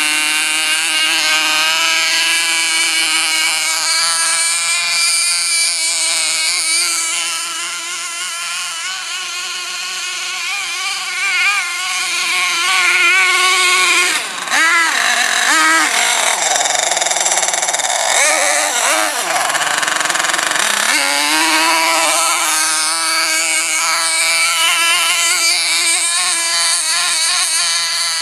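Small glow-fuel engine of a 1:8 nitro RC monster truck running at high revs with a buzzing whine. Its pitch holds fairly steady, then swings up and down as the throttle is worked about halfway through, before settling back to a steady high note.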